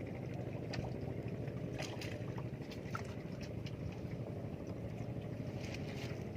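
A boat engine drones steadily over the water, with a few faint clicks on top.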